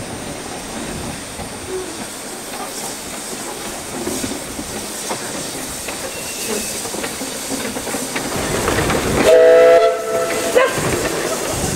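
Small steam tank locomotive No. 2 Prince of the Ffestiniog Railway moving slowly, with a steady hiss of steam and faint knocks of wheels over the rails. Near the end a steam whistle sounds, a chord held for under a second, followed by a brief second toot.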